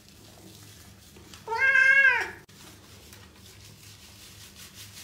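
Wet tabby cat meowing once while being bathed, a loud drawn-out meow about a second and a half in that rises and then falls in pitch.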